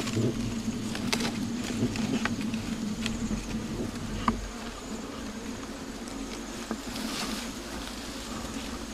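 Wild honey bees buzzing on their exposed comb: a steady low hum of the clustered swarm, with a few soft clicks about one, three and four seconds in.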